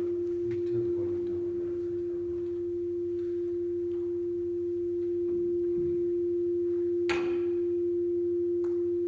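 A steady single-pitched tone, held unbroken, with a brief noise about seven seconds in.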